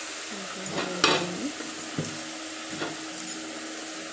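Steady hiss of food cooking in a lidded aluminium pot on a gas stove, with a few sharp metal clinks of the pot and lid, the loudest about a second in.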